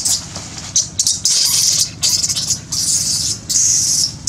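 Baby macaque screeching: a string of shrill, harsh cries, some short and some about half a second long, over a steady low hum.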